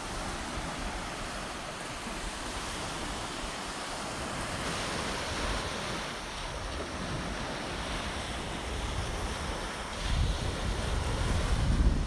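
Small surf waves breaking and washing up a sandy beach. Wind buffets the microphone, growing stronger near the end.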